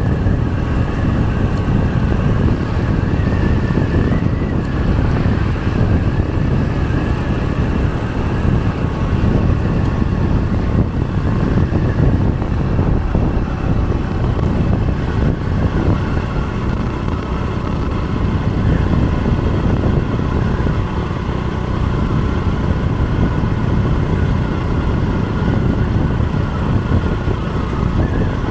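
Motorbike riding along an open road at speed: a steady rush of wind and road noise, with the engine's faint wavering whine.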